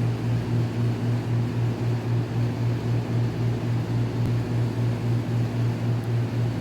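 Electric air compressor running: a steady low hum that pulses about four times a second.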